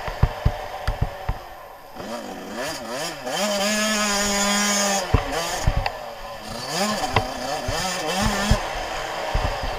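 Suzuki RM85's two-stroke single-cylinder engine revving up and down under a rider on and off the throttle. It holds a steady high pitch for over a second midway. Sharp knocks from the bike hitting bumps in the rough dirt come near the start and just after the middle.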